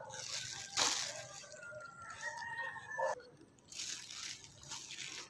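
Rustling and crunching of dry grass and leaf litter underfoot and against squash vines, in two bursts, about a second in and again near the end. A faint drawn-out call sounds in the background in between.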